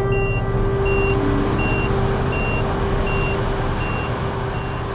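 Giant mining haul truck's warning beeper sounding a steady series of high beeps, about three every two seconds, over a steady hum and the diesel-electric drive's rumble, while its dump body is raised to tip a load.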